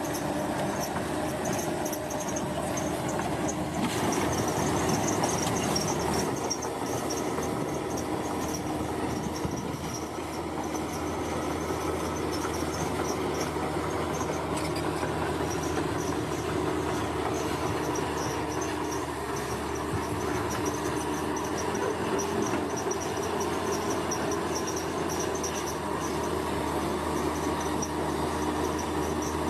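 Heavy construction machinery running steadily, with a constant engine hum and a high, fluttering chirr over it.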